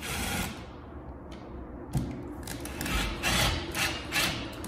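Cordless drill driving a receptacle's mounting screw into a loose-fitting electrical box, with a sharp click about two seconds in and then several short bursts of the drill near the end, about two a second.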